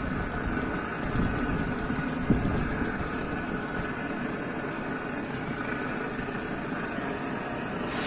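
Marinated chicken pieces sizzling steadily as they fry in hot oil in a non-stick wok, being turned with tongs, with a couple of short knocks about one and two seconds in.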